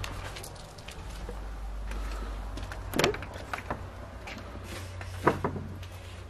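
Old wooden barn door being pushed open, with a knock about three seconds in and another near the end, over a steady low hum.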